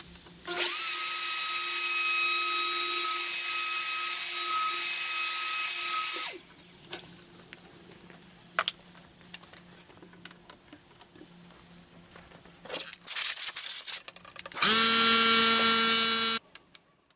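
Handheld wood router's electric motor switched on, spinning up to a steady high whine for about six seconds, then winding down, followed by a few clicks and knocks. Near the end, a shorter, lower-pitched motor run starts and stops after about two seconds.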